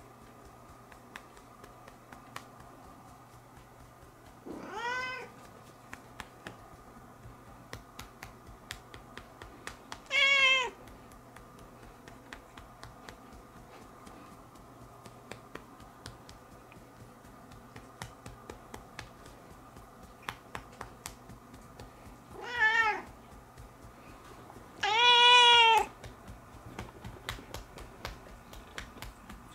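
Domestic cat meowing four times, each call rising and then falling in pitch, spaced several seconds apart; the first is faint and the last is the longest and loudest. Soft clicks tick away between the meows.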